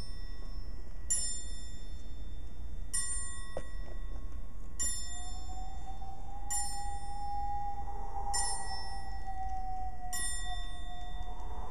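A bell tolling slowly, about one stroke every two seconds, six strokes in all, each ringing on. About five seconds in, a steady held tone comes in under the strokes and runs on.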